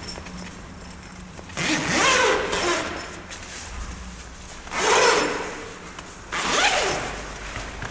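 Tent door zipper pulled along its nylon track three times, each pull about a second long with a swooping pitch as the slider speeds up and slows down.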